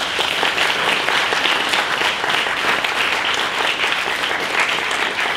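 Audience applauding steadily at the close of a talk, many hands clapping at once.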